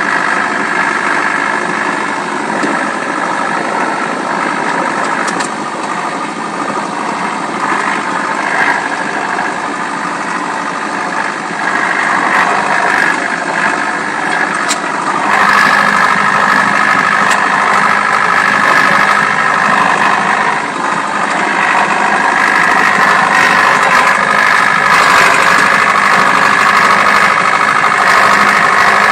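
Tractor engine running steadily as it drives through snow, heard from inside the cab. It gets louder about halfway through and stays louder as the tractor pushes into deeper snow.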